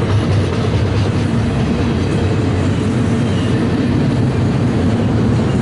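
Double-stack intermodal container train rolling past at close range: a steady rumble of freight car wheels on the rails.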